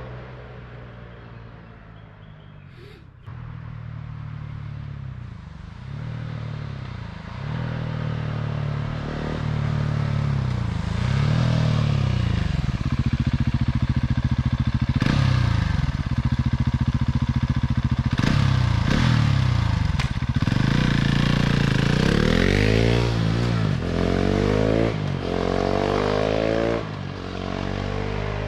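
KTM 690 SMC R single-cylinder engine breathing through an Arrow exhaust with the dB-killer fitted, running low at first and then revved again and again, its pitch rising and falling with each blip. It grows louder from about ten seconds in.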